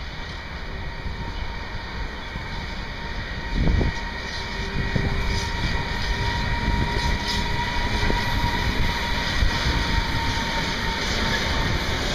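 Electric-hauled freight train rolling past: wheel and rail rumble growing louder as the locomotive and tarpaulin wagons draw close, with a steady high hum over it. There is a single thump about four seconds in.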